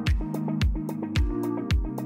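Background music: an electronic track with a steady kick-drum beat, just under two beats a second, with hi-hat ticks over sustained synth notes.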